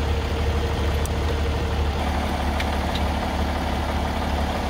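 Large diesel engine of a Class A motorhome idling steadily with a deep rumble. A hum in its sound steps up in pitch about two seconds in. A few light clicks come in over it.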